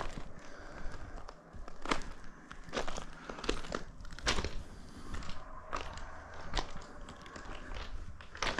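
A hiker's footsteps crunching on a dry dirt and gravel trail, one step roughly every second.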